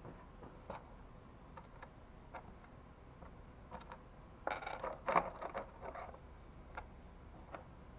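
Metal mounting hardware clinking and clicking as it is handled and fitted, with a short burst of rattling about halfway through.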